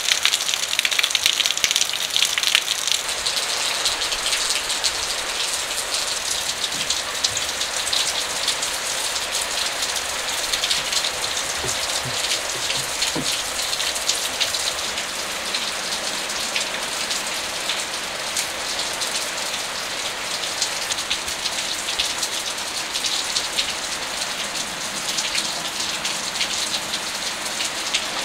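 Steady rain falling, a dense hiss of many small drops.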